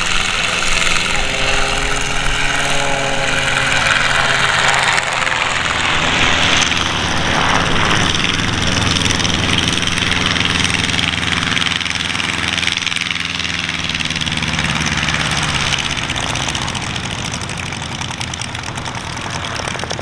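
Calidus autogyro in flight, its turbocharged Rotax 914 flat-four engine and pusher propeller droning steadily, the pitch rising and falling as it manoeuvres.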